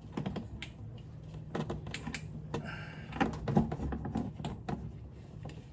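Irregular metallic clicks and taps of hand tools and battery cable hardware being handled while a truck battery is disconnected, with a brief rustle about halfway through, over a steady low hum.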